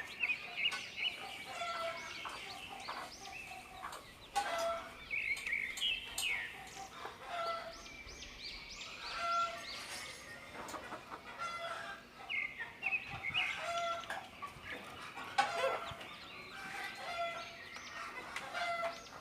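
A local Nepali hen clucking in short, low, repeated notes, the food call a mother hen uses to teach her chicks to eat, while her one-day-old chicks peep shrilly and often around her.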